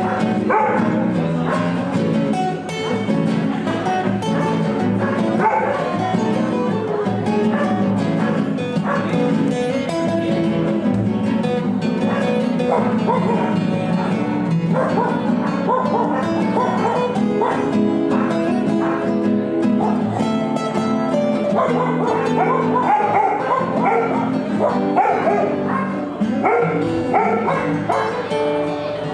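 A nylon-string classical guitar and a steel-string acoustic guitar playing a tune together as a duo.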